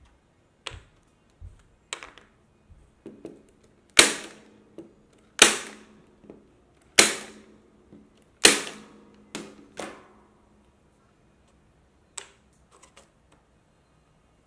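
Corded electric staple gun firing four shots about a second and a half apart, driving fasteners through lattice-moulding rails into plywood, each shot a sharp crack with a short ring. Lighter clicks and knocks come before and after as wooden spacer blocks are set down and moved.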